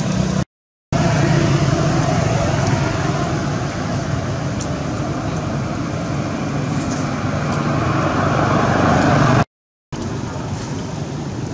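Steady running of a motor vehicle's engine, a loud even rumble that cuts out to silence twice, briefly.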